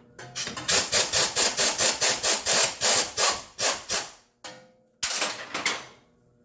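A tool working the rear shock bolt of a motorcycle loose: loud, rapid rattling strikes, about five a second, for roughly three seconds, stopping, then a shorter burst near the end.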